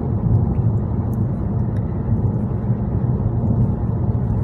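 Inside a moving car: a steady low rumble of road and engine noise.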